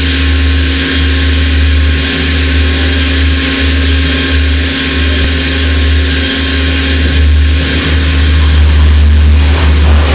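Hydraulic power system of a large structural test machine running, a steady loud drone with a deep hum and a thin high whine.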